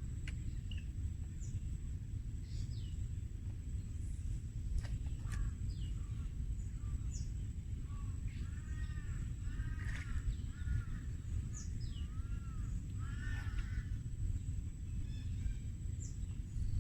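Birds calling outdoors: scattered short, quick high chirps, with a run of repeated arching notes in the middle. Underneath runs a constant low rumble and a steady thin high tone.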